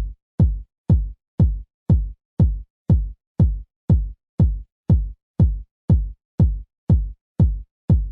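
House-music kick drum playing alone: a steady four-on-the-floor beat of about two kicks a second, each a short low hit that drops in pitch, with nothing else between them.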